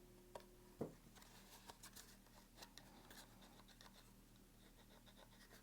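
Faint scratching and small clicks of a bolt being worked into a Safariland holster's QLS fork mount, with one sharper knock about a second in.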